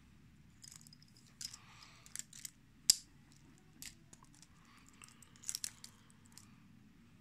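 Wristwatches being handled: irregular small clicks and light metallic jingles of bracelets and cases, with one sharp click about three seconds in as the loudest.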